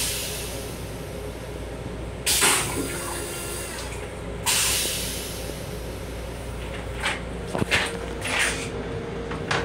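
Flush cycle of the stainless-steel toilet in a Long Island Rail Road M7 railcar restroom: two sudden spraying bursts of rinse water into the bowl about two seconds apart, over the steady rumble of the moving train, with a few lighter knocks near the end.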